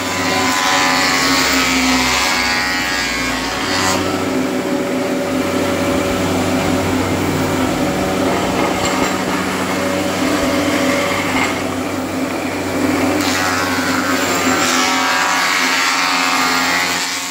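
Multico TH3 thickness planer, its straight-knife cutterhead planing a wide oak board: a loud, steady machine hum under dense cutting noise, which cuts off suddenly at the end.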